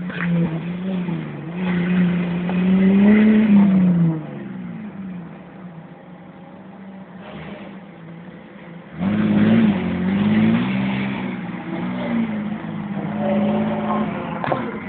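Off-road 4x4 competition vehicle's engine revving hard, its pitch rising and falling. It drops away about four seconds in, stays quieter for about five seconds, then comes back loud with the revs rising and falling again.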